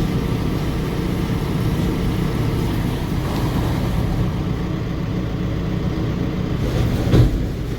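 New Holland 855 round baler running steadily, driven by its tractor, with the repaired apron chain turning. A single heavy thump about seven seconds in as the tailgate closes.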